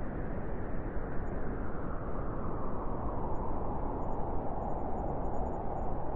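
Wind blowing steadily, a deep rushing noise with no gusting breaks, whose pitch drifts slowly lower and then back up.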